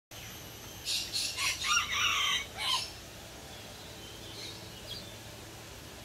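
Sun conure screeching: a string of loud, harsh calls starting about a second in and lasting about two seconds.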